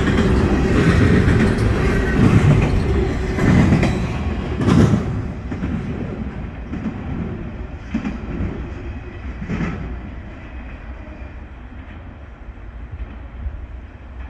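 Double-stack intermodal freight train's well cars rolling past, with wheel knocks over the track and a sharp loud knock about five seconds in. The rolling noise then fades steadily as the end of the train draws away, with a couple of fainter knocks.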